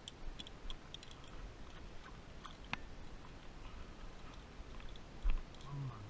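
Faint scattered clicks and ticks of a fishing rod and reel being handled, with one sharper click a little before the middle and a dull knock near the end.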